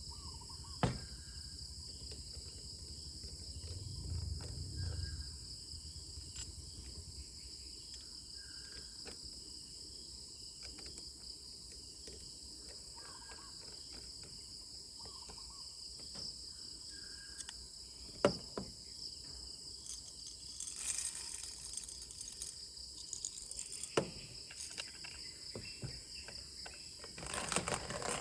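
A steady, high-pitched insect chorus of crickets trilling without pause, with a few short, lower chirps every few seconds. A few sharp clicks and knocks, and a brief rustle near the end.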